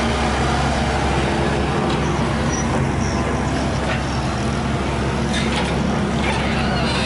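Diesel engine of a small hydraulic excavator running steadily under load as the machine swings and digs into a pile of soil, with a few short scraping knocks from the bucket in the dirt and rubble about four and six seconds in.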